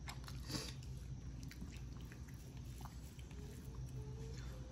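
Faint soft clicks and rustles of a hand mixing rice on a steel thali plate, over a low steady hum.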